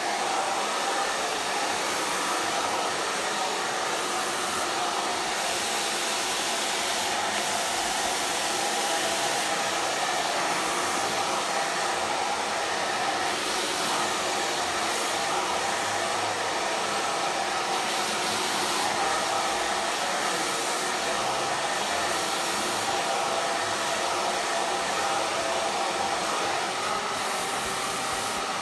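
Handheld hair dryer running steadily, blowing along a round brush to dry and heat long hair: an even rushing of air with a faint steady whine from the motor.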